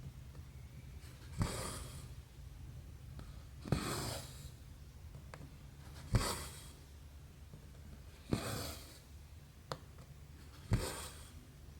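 Hand cross-stitching on 11-count canvas: the needle pokes through the fabric with a sharp click, then the stranded floss is drawn through with a short rasping swish. This happens five times, about every two seconds, over a faint steady low hum.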